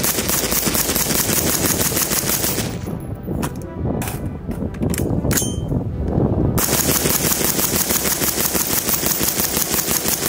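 Suppressed PSA Freedom AR-15 firing in full auto: a long, fast burst, a pause of about four seconds, then another long burst. The rifle is near 5,000 rounds without a proper cleaning, and its ejection is becoming inconsistent, which the shooters put down to a worn ejector or extractor.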